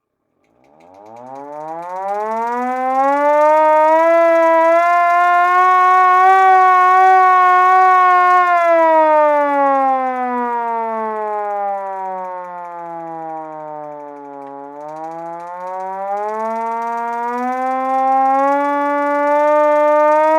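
Vintage manual fire siren winding up from a low pitch to a steady high wail over about three seconds and holding it. About eight seconds in it slowly winds down to a low note, then climbs again toward the end.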